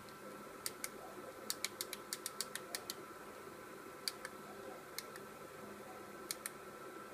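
Small push buttons on a homemade battery discharger clicking as they are pressed to set the discharge current and low-voltage cutoff. There are two clicks, then a quick run of about eight, then pairs of clicks about a second apart, over a faint steady hum.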